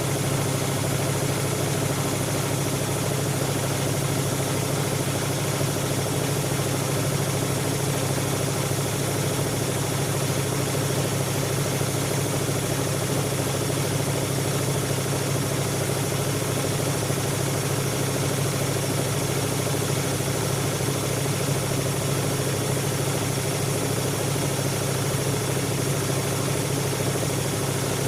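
Siemens Siwamat 7163 washing machine running with a steady, unbroken motor hum and vibration.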